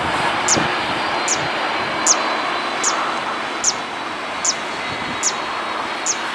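Airbus A330-202 jet engines (GE CF6-80E1) running at low taxi power as the airliner moves on the runway, a steady wide rushing noise. Over it, a short high falling chirp repeats about every 0.8 s, eight times.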